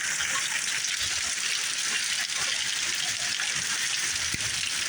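Heavy thunderstorm rain pouring down in a downpour, a steady, even hiss.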